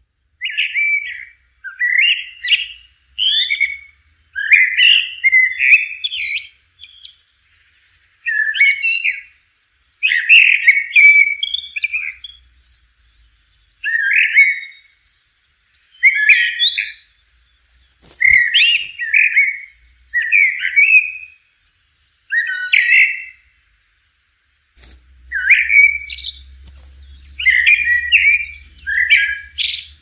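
A common blackbird singing: a long string of short warbled phrases, one every second or two, with brief pauses between them.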